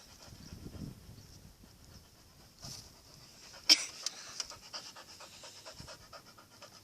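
A pit bull panting close by, with one sharp click about halfway through.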